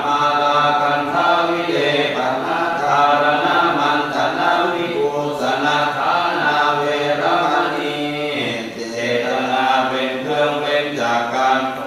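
Thai Buddhist chanting: voices reciting continuously in the measured rhythm of temple chant (สวดมนต์).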